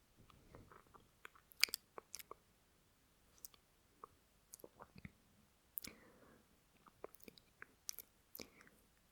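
Close-miked mouth noises from a voice performer: wet lip smacks and mouth clicks, scattered at irregular intervals. There are soft breaths about half a second in and again around six seconds in.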